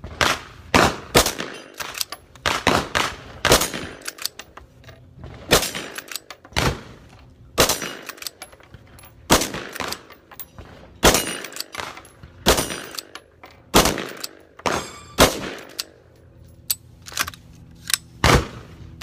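Gunshots: about two dozen sharp reports at irregular intervals, some in quick succession, each followed by a short echo.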